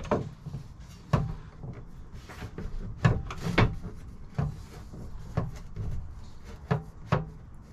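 Perforated sheet-metal window screen cover knocking and clicking against the van's window frame as it is pressed into place and lined up with the screw holes. There are about eight sharp knocks at uneven intervals, the loudest a pair about three seconds in.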